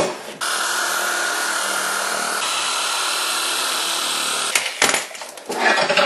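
Hand-held electric shear running steadily as it cuts through a washing machine's plastic tub, stopping about four and a half seconds in; a few sharp knocks follow.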